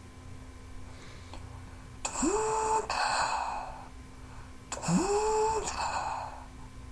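Vocal imitation of a war machine made with the mouth, twice: each starts with a sudden hissing blast and a quick upward-gliding whine that levels off, then a breathy hiss that trails away.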